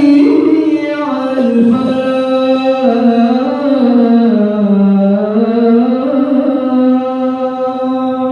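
A man's voice singing one long, drawn-out phrase of the adhan, the Islamic call to prayer, with ornamented turns in the melody. The pitch sinks lower around the middle and climbs back up before the phrase ends near the close.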